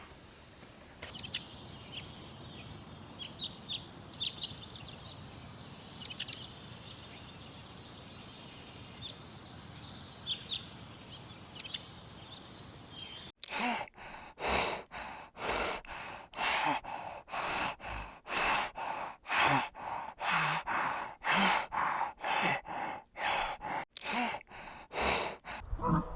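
Quiet outdoor background with scattered short, high bird chirps. About halfway through it cuts to a regular run of loud, noisy, breath-like pulses, about one and a half a second, from an animal that cannot be named.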